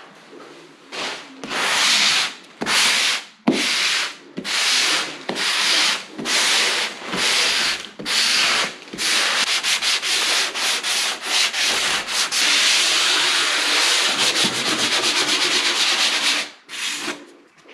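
Hand sanding of dried drywall joint compound with a sanding block, a scratchy rasp with each stroke: the light sanding of the first coat before the next coat. The strokes come about twice a second at first, then run together into fast, steady scrubbing through the second half, stopping near the end.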